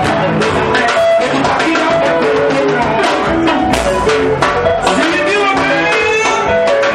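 Live sungura band music: electric guitar lines over bass guitar and a steady drum beat.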